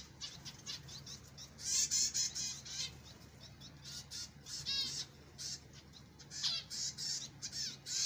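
A flock of caged pet finches, zebra finches among them, chirping and calling: many short high chirps and beeps, with quick rattling call runs near the middle. A faint steady low hum lies under them.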